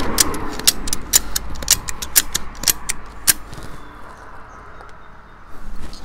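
Ratchet-strap hand winch being cranked, its pawl clicking about twice a second; the clicking stops about three seconds in.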